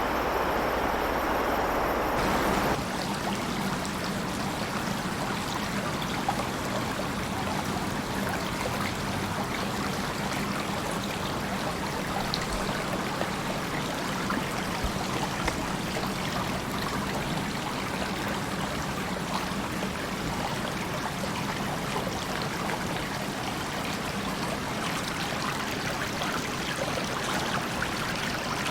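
A shallow river babbling and trickling over stones, a steady rush of running water. For the first two and a half seconds a louder, deeper rushing sound plays instead, and it cuts off abruptly.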